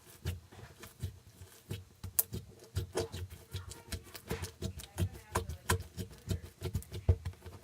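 Hands kneading and squeezing slime, making irregular small wet clicks and squelching pops several times a second.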